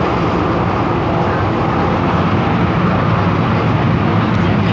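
Steady running noise of an MTR M-Train heard inside the car as it travels at speed: a loud, even rumble of wheels on rails and running gear with a low hum beneath it.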